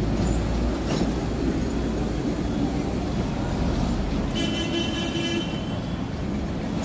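Street traffic with a Hong Kong double-decker tram approaching along its tracks. About four and a half seconds in, a toot sounds for about a second.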